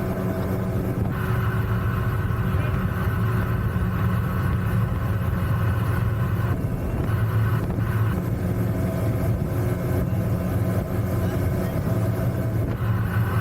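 MotoJet mini jet boat's engine running steadily while the boat is under way.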